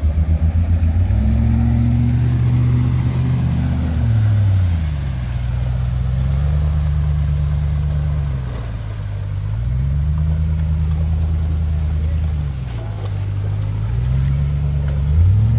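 Land Rover Discovery's engine working through deep mud, its revs swelling up and dropping back again and again in surges of a few seconds each. In the first second it runs with a fast, low throb before the revs rise.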